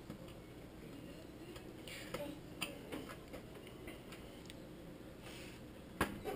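Scattered light clicks and taps of plastic microwave control-panel parts being handled and pressed into place, with a sharper click about six seconds in.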